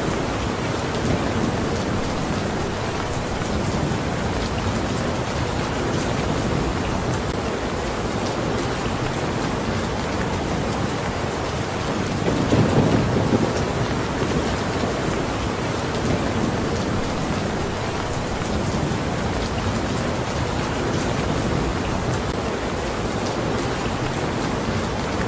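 Steady, dense rain falling. A low rumble swells briefly about halfway through.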